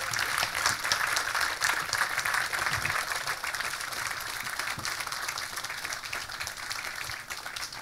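Audience applauding, a dense patter of many hands clapping that is loudest in the first few seconds and slowly tapers off.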